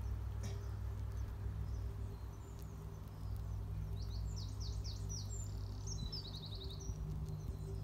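A small songbird singing: a quick run of short, high, falling chirps about four seconds in, ending in a fast trill. A steady low rumble of outdoor background noise runs underneath.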